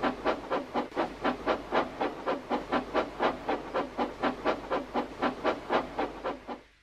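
Steam locomotive chuffing steadily at about four puffs a second as it pulls away, fading out near the end.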